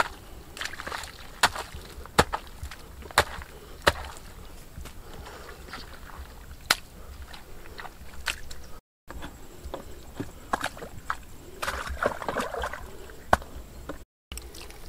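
Water trickling through a shallow mud channel, then wet mud being scooped and packed by hand: irregular sharp wet clicks and splats, with a stretch of sloshing about twelve seconds in.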